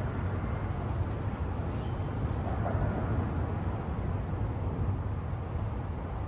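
Freight train rolling away on the rails, a steady low rumble of wheels on track as the last autorack car recedes.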